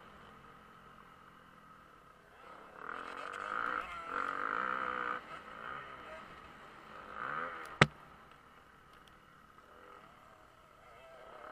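Motocross dirt bike engine revving up and down as it is ridden around the track, with quieter stretches when the throttle is off. There is a single sharp crack just before the middle.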